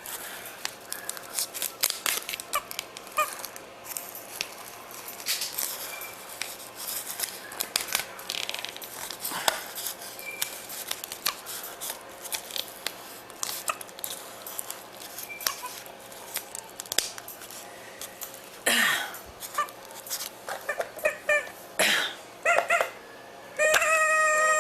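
Rustling and clicking of the doll's crier being handled, its plastic bottle-bag bellows and duct tape crinkling, then near the end the rebuilt crier lets out one long wailing baby cry whose pitch sags slightly. The long cry shows the new bag bellows now hold enough air.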